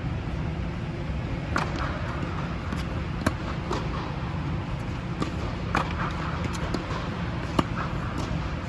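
Tennis ball struck by rackets in a relaxed baseline rally: a sharp pock roughly every two seconds, with softer ball bounces between. A steady low hum runs underneath.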